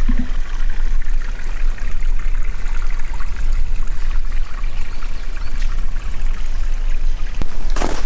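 Meltwater trickling over wet stones, a steady watery rush over a low rumble. Near the end, a few sharp crunching footsteps in snow.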